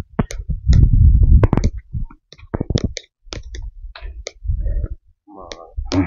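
Footsteps and rustling on a forest trail: irregular clicks and crunches with low thumps while walking.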